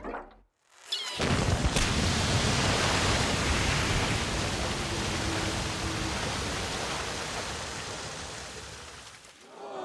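Water blasting out of a ruptured tanker truck's tank in a powerful jet, a steady rushing spray that cuts in suddenly about a second in. It splashes over mud and a car, then slowly dies away near the end.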